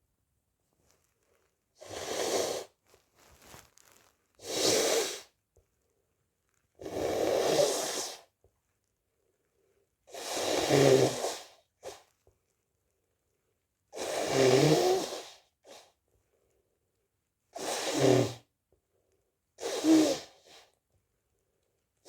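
A person sneezing over and over, about eight loud bursts a couple of seconds apart, with short breaths between some of them.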